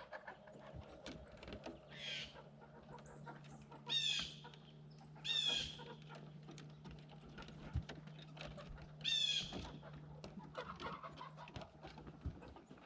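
Chickens calling: four short, loud calls, about two, four, five and nine seconds in, over a low steady hum and scattered light clicks.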